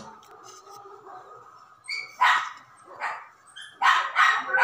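A dog barking: several short barks, starting about two seconds in and coming closer together near the end.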